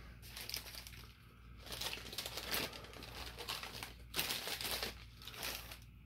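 Crinkling of a wrapper or bag being handled, in several bursts that stop near the end. Underneath, a steady low hum from the running ceiling fan's motor.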